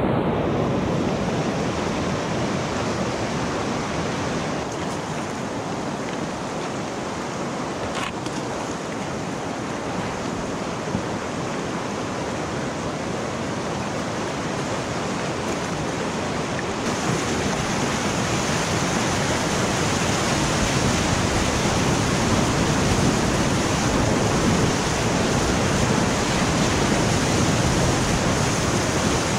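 Whitewater of a river rapid rushing, a steady loud rush of water noise. About halfway through it turns brighter and hissier, the water heard close up from a kayak in the rapid.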